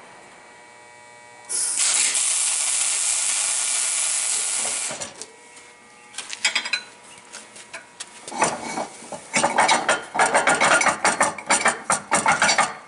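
A loud steady hiss lasting about three and a half seconds. Later comes a quick run of sharp rattling, clattering knocks, like metal tools being worked, lasting about four seconds.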